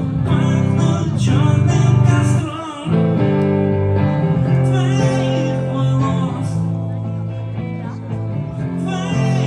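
Live band music with guitar and a singing voice. The sound dips briefly about two and a half seconds in.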